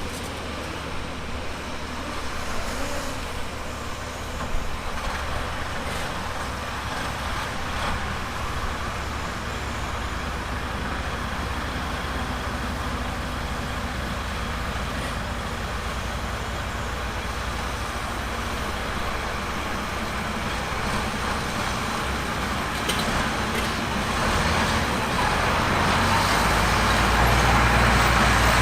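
Diesel engine of heavy earthmoving machinery running steadily, getting louder over the last few seconds.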